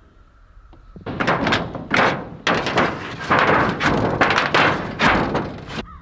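A new sheet-metal roofing panel scraping and rattling against old, thin corrugated roofing as it is worked into place. The loud, irregular metal clatter with sharp knocks starts about a second in and stops suddenly just before the end.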